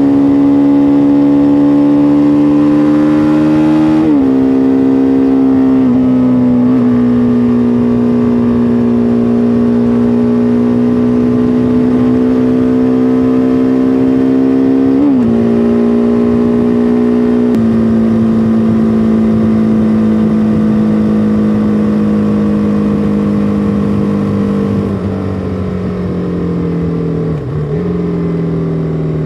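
BMW G310R single-cylinder engine and exhaust running hard at speed, its pitch held nearly steady with a few brief jumps and steps. Near the end it eases off, the pitch falling with a couple of short dips.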